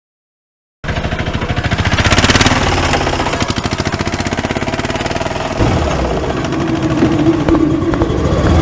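An engine, like a motorcycle's, starting abruptly about a second in and running with a fast, even pulse; its sound shifts about five and a half seconds in, with a steady tone added over the running engine.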